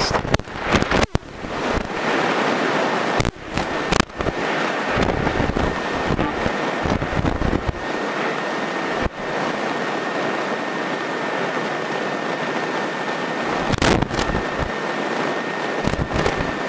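Steady rushing noise of a Grumman single-engine light aircraft's engine and propeller, heard from inside the cockpit while taxiing, with a faint steady high whine and a few scattered clicks.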